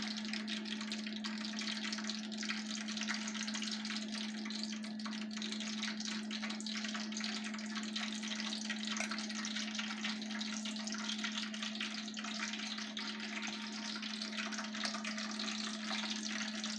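Steady hissing noise with fine crackle, over a constant low hum.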